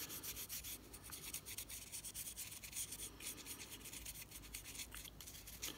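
Fibre pen scrubbing the gold contacts of a vintage Casio 31QS watch circuit board, a faint scratchy rubbing of rapid back-and-forth strokes. The pen is cleaning grease and corrosion off the contacts that feed the LCD.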